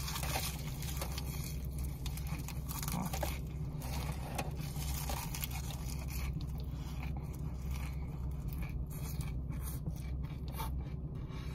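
Close-up chewing of a mouthful of raw leafy greens (a kale, chard and spinach mix): irregular crisp crunching and leafy rustling. A steady low hum runs underneath.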